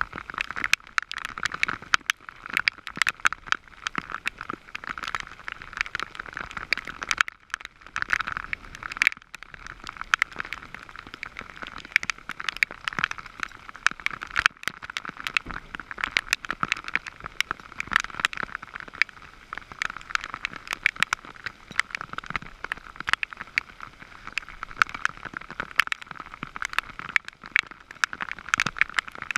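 Heavy rain falling, a dense, irregular stream of raindrop ticks.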